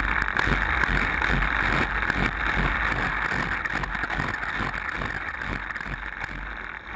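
String trimmer fitted with a Weedshark Pro cutting head running steadily while it cuts grass and weeds along a concrete edge. The sound fades out gradually toward the end.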